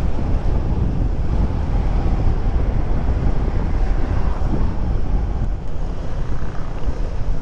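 Wind rushing over the microphone of a moving Honda Click 125 scooter: a steady low rumble of wind and road noise with no break.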